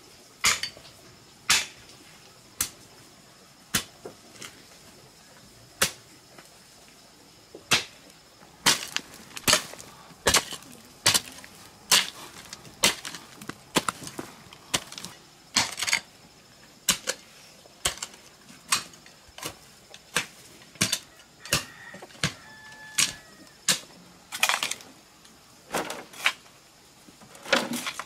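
A hoe striking into a bank of clay soil again and again: sharp chopping blows, a few at first, then about one to two a second.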